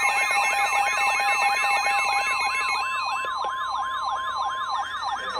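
Emergency Alert System attention tones: a steady alert tone overlaid with a fast warbling, siren-like sweep, about four sweeps a second. Some of the steady tones drop out about halfway through, and the alert cuts off near the end. It signals an incoming emergency warning broadcast.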